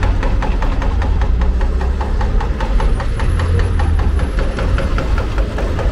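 Heavy engine of construction machinery running steadily, with a low rumble and a fast, even knocking.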